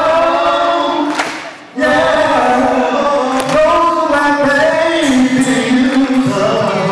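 Two men singing together through handheld microphones, holding long notes, with a short break about a second and a half in.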